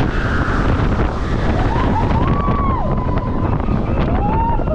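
Wind rushing over a chest-mounted camera's microphone and the steady rumble of a Cheetah Hunt roller coaster train running at speed through its track. A few high gliding tones rise and fall about halfway through and again near the end.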